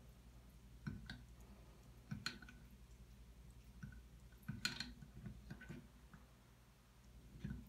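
Faint, irregular clicks and taps of a cat's paw and claws working at a metal bathtub spout, roughly one every second, with a small cluster about halfway through and another near the end, over a low steady hum.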